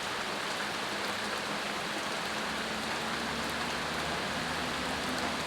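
Steady rainfall: an even hiss of rain falling on surfaces.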